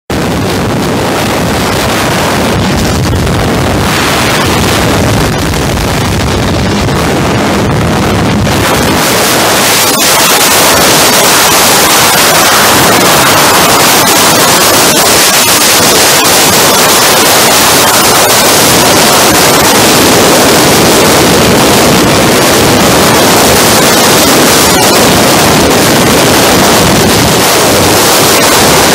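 Loud, steady wind rush over the microphone of a camera moving at road speed, getting louder and brighter about nine seconds in.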